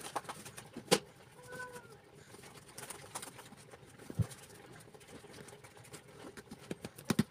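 Metal spoon clinking and scraping against a plastic container and bowl while cream is spread and poured over a graham cracker layer, with sharp clicks about a second in and near the end and a dull knock about four seconds in. A short animal call sounds about a second and a half in.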